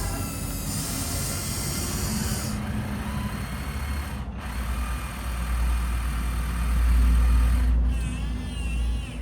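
Small electric motors and gearboxes of radio-controlled construction trucks running with a whirring whine over a low rumble, cut off briefly twice.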